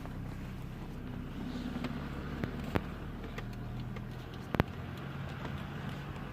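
Car engine running steadily, with a couple of sharp knocks, about three and four and a half seconds in.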